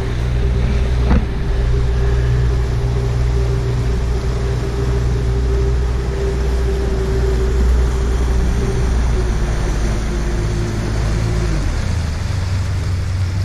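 Boat's outboard motor running at a steady speed, heard over a rush of wind and water noise. About eleven and a half seconds in, the engine note drops as the boat throttles back.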